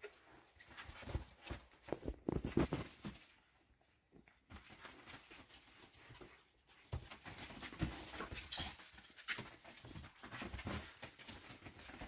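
Himalayan–Ragdoll kittens playing: irregular scuffling, taps and light thumps, loudest about two to three seconds in.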